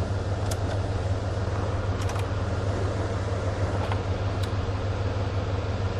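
Dodge Ram 1500 pickup's engine idling steadily, with a few light clicks.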